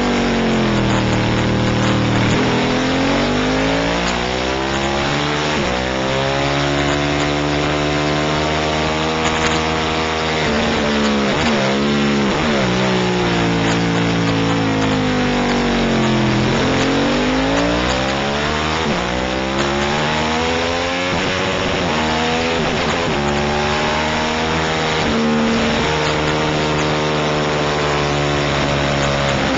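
Racing motorcycle engine heard from onboard at race pace, its pitch climbing hard under acceleration and falling away as it slows for corners, with sharp drops twice near the middle. A steady rush of wind runs under the engine.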